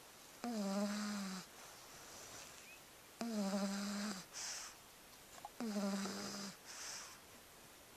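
Pug snoring: three snores roughly two and a half seconds apart, each a steady buzzing tone about a second long, followed by a short breathy hiss.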